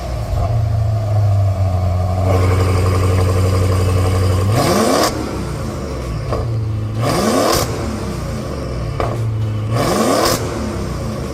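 Maserati Levante Trofeo's twin-turbo V8 breathing through an aftermarket FI cat-back exhaust and 200-cell catalyst, running at a steady drone for about four seconds, then blipped three times, each rev climbing quickly and falling back.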